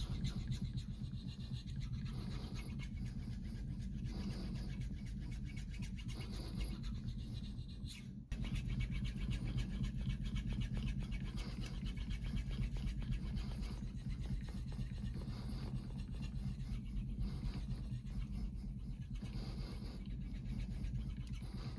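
Shun nakiri's steel blade being sharpened by hand on a whetstone: continuous rapid scraping strokes of steel on stone, with a brief break about eight seconds in.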